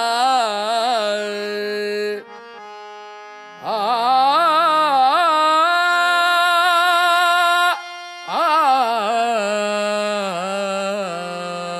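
Background music in an Indian classical style: a long, ornamented melody in three phrases whose held notes waver and slide in pitch, over a quieter sustained drone.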